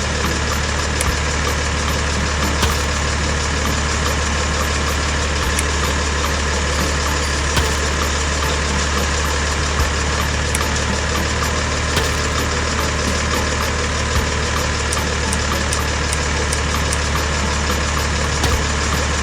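Steady engine idling drone, unchanging in level, with faint light clicks every second or two.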